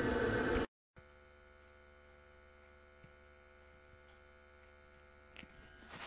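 Gas boiler running with a loud, steady rush that cuts off abruptly under a second in. A faint steady electrical hum follows, with a few light knocks near the end.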